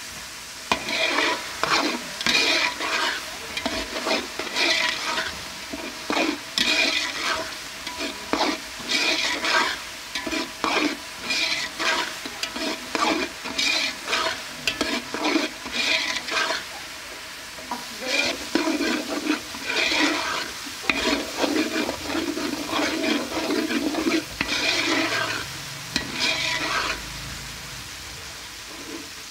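Spatula stirring and scraping a tomato masala frying in oil in a steel pot, in repeated strokes about once a second, with the oil sizzling underneath. The stirring stops shortly before the end.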